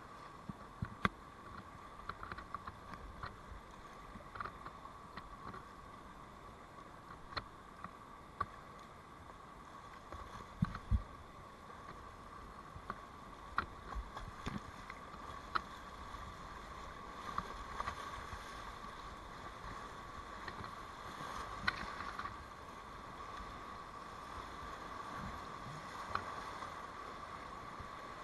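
Rushing whitewater of a big river rapid, a steady wash that grows a little louder in the second half, broken by frequent sharp knocks and splashes from kayak paddle strokes.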